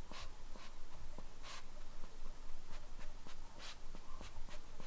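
A Chihuahua sniffing intently at a fabric blanket: a string of short, quick sniffs at irregular intervals, two of them stronger, about a second and a half in and near the end.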